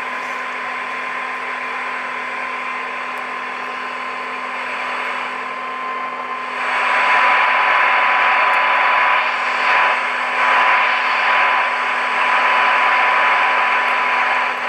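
A transistor radio's speaker playing a steady 1 kHz test tone buried in loud hiss from a weak signal during alignment. The hiss jumps louder about six and a half seconds in, then the output drops away abruptly at the end, which the repairer puts down to a bad connection or a flaky transistor.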